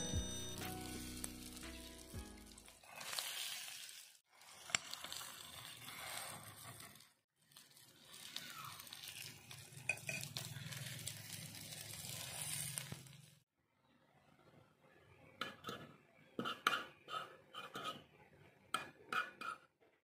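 Bangus sisig sizzling on a hot cast-iron sizzling plate as a spoon and fork stir into it. Later come a run of sharp clinks and scrapes of steel cutlery against the pan.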